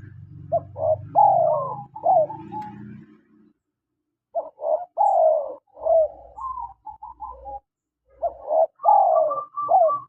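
Spotted dove cooing: three phrases of several short notes each, with a louder falling coo in the middle of each phrase. A low hum runs under the first phrase and stops after it.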